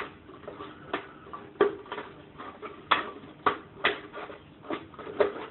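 Plastic drink bottle being handled and cut: a run of irregular sharp clicks and crackles of thin plastic, about seven in a few seconds.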